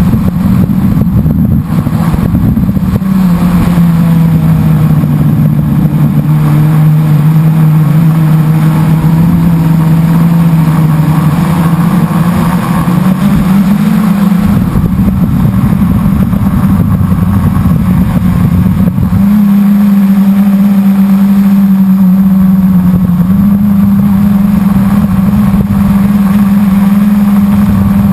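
Blade 350 QX quadcopter's four brushless motors and propellers, heard from its onboard camera: a loud, steady buzz. Its pitch drops a few seconds in, rises around the middle, and steps up again about two-thirds of the way through as the throttle changes.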